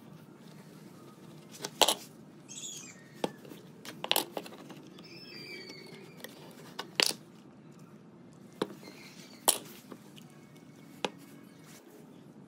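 Scattered sharp knocks and clacks, about seven at uneven intervals, with faint bird chirps between them.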